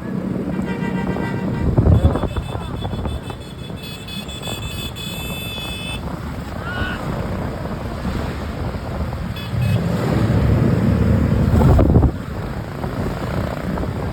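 Traffic passing on a roadside with wind buffeting the microphone. Short bursts of a musical multi-tone 'telolet' bus horn sound about half a second in and again from about four to six seconds in. A louder low rumble from around ten to twelve seconds cuts off suddenly.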